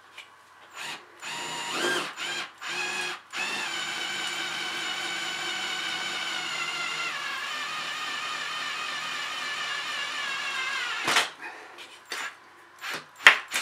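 Cordless drill boring slowly through aluminium flat bar: a few short trigger bursts, then a steady motor whine for about eight seconds that sags slightly in pitch as the bit bites. It cuts off about eleven seconds in, followed by a few knocks.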